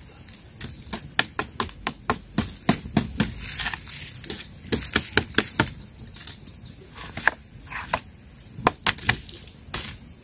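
Wood campfire crackling, with many irregular sharp pops and snaps, several a second, and duller knocks of burning sticks being shifted in the fire.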